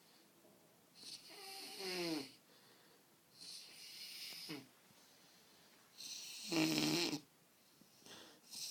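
A sleeping man snoring heavily: three rasping breaths about two and a half seconds apart. Each ends in a throaty tone that drops in pitch, and the third is the loudest. Another snore begins near the end.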